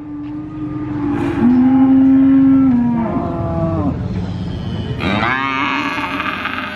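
Calf mooing: one long moo that drops in pitch and trails off about four seconds in, then a second moo starting about a second later.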